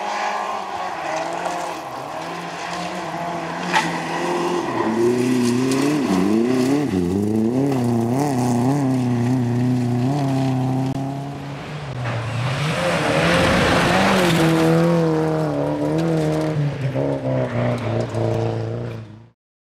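Rally cars racing on a gravel stage, engines revving hard with the pitch repeatedly climbing and dropping through gear changes. A car passes close about 13 seconds in, with a surge of tyre and gravel noise, and the sound cuts off suddenly near the end.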